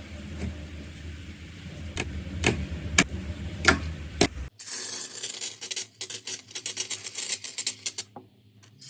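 Slime being handled and pressed, giving scattered sharp pops over a low hum; about halfway through it switches abruptly to a dense, crisp crackling that stops near the end.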